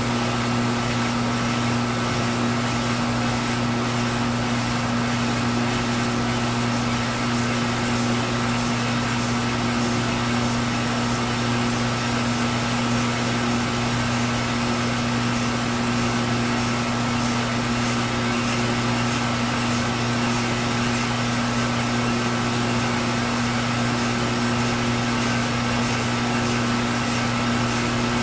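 Milling machine running a steady facing cut on the end of a glass stern tube: a constant motor hum under an even cutting hiss, unchanging throughout.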